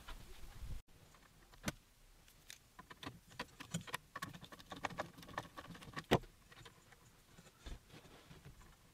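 Faint, scattered clicks and taps of small hardware being handled: a screwdriver bit and fingers working the screws of a CNC gantry's carriage plate, with one sharper click about six seconds in. No screwdriver motor is heard running.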